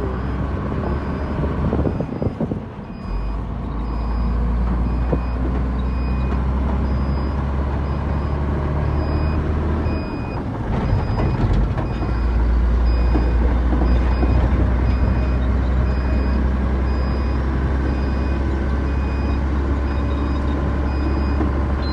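SHACMAN F200 truck's 420-horsepower diesel engine running with a steady low drone while cruising at about 60 km/h, dipping briefly about three seconds in and again around the middle. A short electronic beep repeats about once a second throughout.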